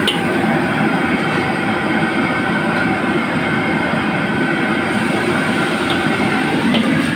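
Steady roar of a high-pressure gas wok burner running at full flame, with a few light clinks of a steel ladle against the wok.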